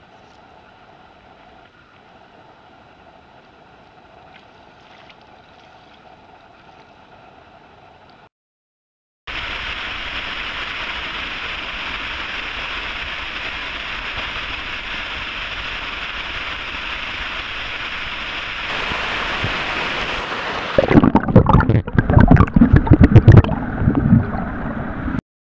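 Stream water in three takes: a faint steady trickle of a creek, then about nine seconds of the steady rush of a small waterfall and riffle, then loud, irregular, deep gurgling and buffeting of water around an underwater camera.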